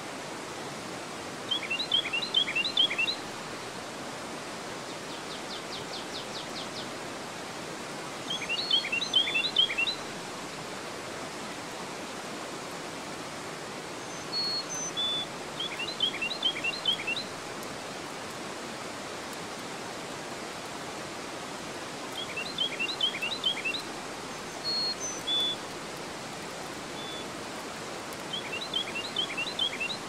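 River water pouring over a low dam's weir into rapids, a steady rush. Over it a songbird sings a short phrase of quick falling notes about every seven seconds, the loudest thing here, with one brief trill and a few single high notes between.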